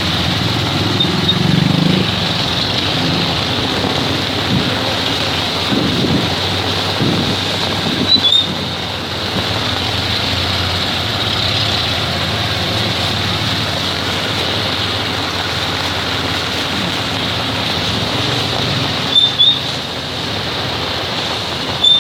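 Steady hiss of heavy rain falling, with a few short high squeaks about eight seconds in and again near the end.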